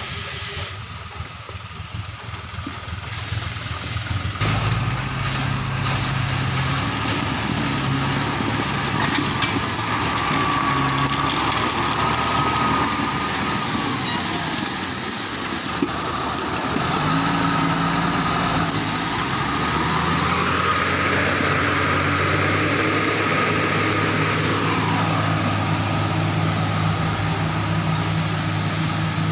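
Heavy diesel engines of road-works machines running steadily: a dump truck tipping its load of stone, then a motor grader working over the spread stone. The engine note changes abruptly several times.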